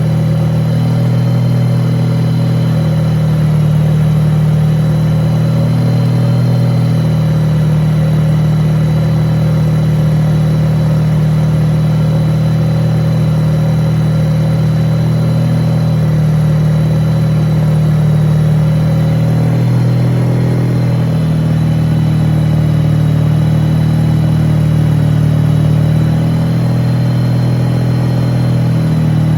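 Rotary (Wankel) engine running steadily, its pitch drifting slightly up and down every few seconds.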